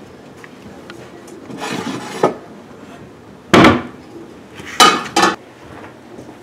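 Kitchen clatter of cookware and doors being handled: a scraping sweep about two seconds in, a heavy clank a little past halfway, then two sharp knocks in quick succession.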